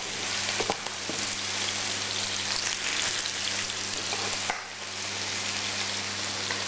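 Sliced bell peppers and onion sizzling in a frying pan, a steady frying hiss that dips briefly about two-thirds of the way through. A steady low hum sits underneath.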